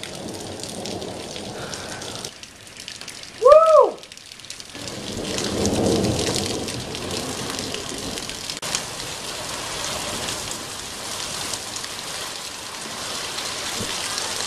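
Steady rain falling, with a low rumble of thunder swelling and fading about five to seven seconds in. About three and a half seconds in, a brief squeak rises and falls in pitch; it is the loudest moment.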